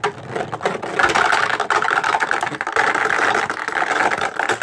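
Beyblade Burst spinning tops whirring and clashing in a plastic stadium: a loud, dense rattle of tops scraping across the floor and knocking together, fading out at the very end.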